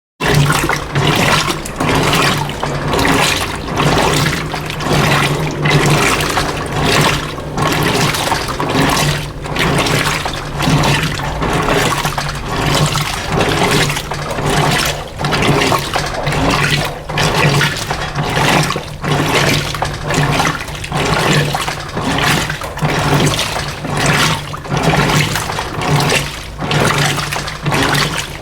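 Electrolux LF90 top-load washing machine washing rugs at a low water level: water and wet rugs sloshing in regular surges about once a second over a steady motor hum.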